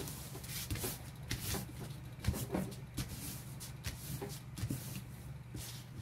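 Crumpled, lotion-kneaded painted copy paper crinkling and rustling under hands as it is smoothed flat, in irregular crackles with a few sharper clicks.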